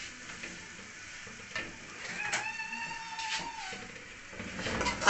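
Steel ladle stirring and scraping grated coconut through a steel karahi of hot ghee, with scattered clicks over a faint sizzle. About two seconds in, a steady tone sounds for about a second and a half.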